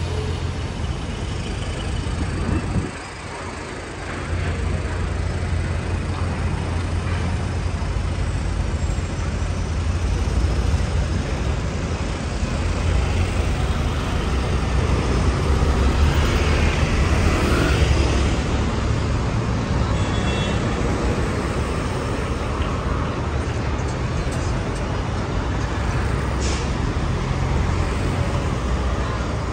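Traffic on a busy city street: vehicle engines rumbling steadily, growing louder about halfway through as a vehicle passes close by.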